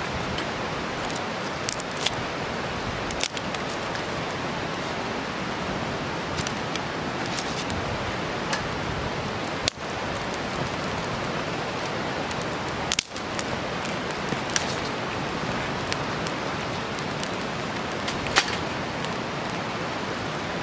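Campfire of dry conifer sprigs and twigs burning: a steady hiss of flames with sharp crackles and pops scattered through it.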